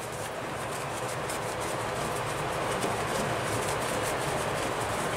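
Screwdriver working at a screw in a cast-iron tractor carburetor body, making a run of small quick scrapes and clicks over a steady background hiss.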